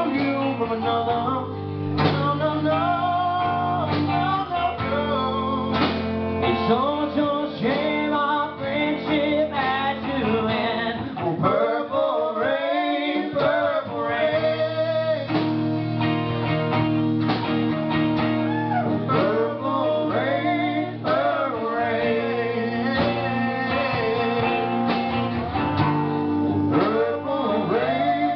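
Live acoustic guitar playing chords while a man sings along.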